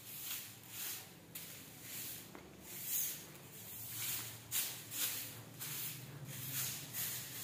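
Short-handled grass broom sweeping a marble floor: quick, airy swishes of the bristles over the stone, about two strokes a second.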